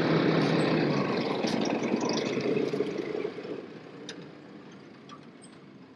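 A ute's engine running as the vehicle rolls past over a dirt bush track, then fading steadily away over the next few seconds, with a few small crackles under the tyres as it goes.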